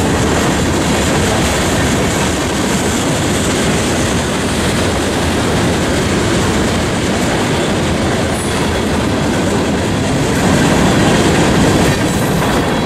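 Freight train cars (tank cars, covered hoppers and boxcars) rolling past close by: a steady, loud noise of steel wheels running on the rails.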